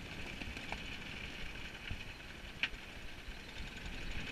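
Wind and sea rushing past a sailing yacht under way in rough weather: a steady hiss with low rumble, and one sharp tick a little past halfway.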